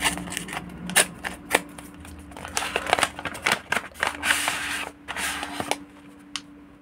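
A small package opened by hand: a string of sharp clicks and taps, with two short bursts of rustling about halfway through.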